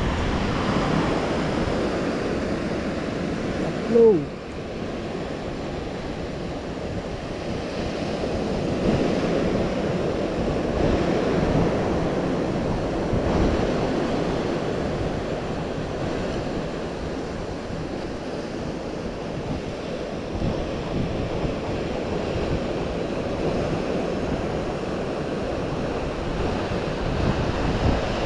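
Sea surf washing against a rocky shore, with wind on the microphone. About four seconds in, a brief loud sound with a falling pitch.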